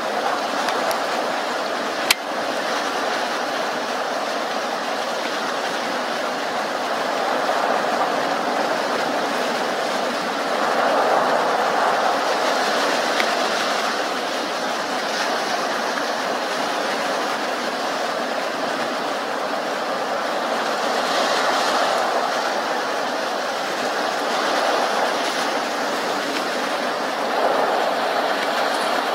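Steady wash of surf on a beach, swelling and easing every several seconds, with a single sharp click about two seconds in.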